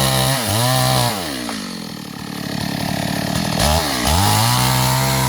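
Chainsaw engine running at high revs. Its speed dips briefly twice early on, then falls to a lower speed for about two and a half seconds before revving back up and holding steady near the end.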